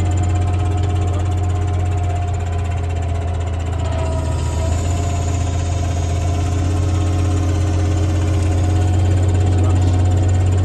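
Fendt 936 tractor's six-cylinder diesel engine running steadily under load, pulling a ten-furrow plough as it goes into the ground, with a deep even drone that grows a little louder near the end.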